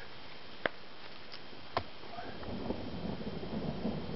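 Distant thunder: a low, uneven rumble that builds from about halfway through. Earlier there are a couple of sharp isolated clicks.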